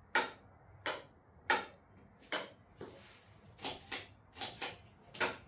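Light being switched on and off: sharp single clicks about every 0.7 s in the first couple of seconds, typical of a wall toggle switch being flipped. A quicker cluster of clicks follows near the end.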